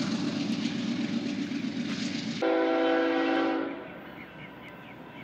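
Steady noise for about two seconds, then a railroad locomotive's multi-chime air horn sounds one steady chord blast lasting a little over a second. After the horn it is much quieter.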